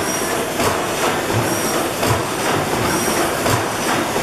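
A 600-horsepower Snow-Worthington reciprocating natural gas pumping engine running with a steady, loud mechanical clatter. Heavy low beats come about every three quarters of a second, and a short high squeal comes with every other beat.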